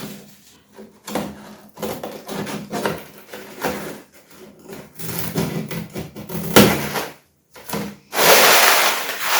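Laminate flooring work: a string of knocks and rubbing on wood and board, with one sharp knock about six and a half seconds in, then a loud rushing scrape near the end.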